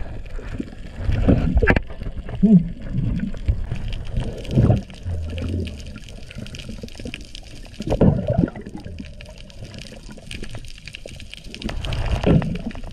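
Muffled underwater water noise: gurgling and sloshing with a low rumble, swelling irregularly a few times.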